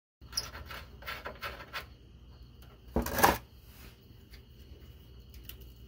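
Hand handling the inline fuel filter and its loosened metal line fittings: scattered rubbing and light clicks, with one louder scrape about three seconds in.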